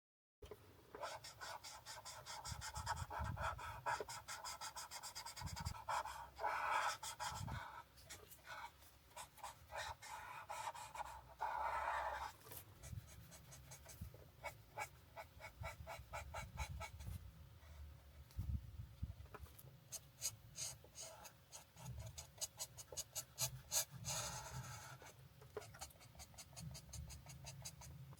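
Alcohol marker tips scratching over paper in quick, repeated back-and-forth colouring strokes, with a few denser spells of rapid strokes.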